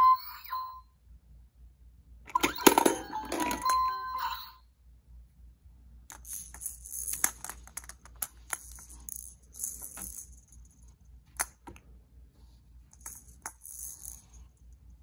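A Fisher-Price Swirlin' Surprise gumball machine toy plays a short electronic jingle at the start and again from about two to four and a half seconds in. After that, its clear plastic Roll-a-Rounds balls rattle and click as they roll out of the machine one after another, in scattered clicks and bursts of high rattling.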